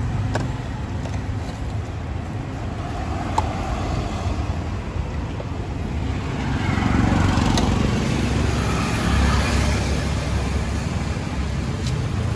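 Road traffic running steadily with a low rumble, swelling louder in the middle as a vehicle passes.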